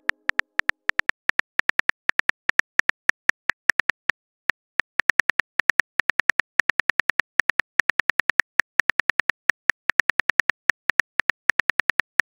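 Simulated phone keyboard typing clicks from a texting-story app, a rapid run of sharp taps at about six a second, with a short break about four seconds in.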